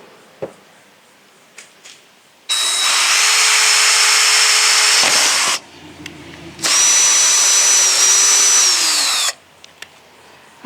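Power drill turning a large hole saw, cutting the snorkel hole in the car body. It runs in two bursts of about three seconds each with a short stop between, and the motor winds down at the end of the second.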